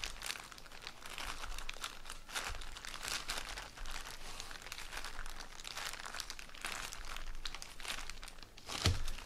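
A plastic bag wrapped around a bamboo sushi rolling mat crinkling and rustling as hands roll and press it, in a continuous run of irregular crackles, with a louder one near the end.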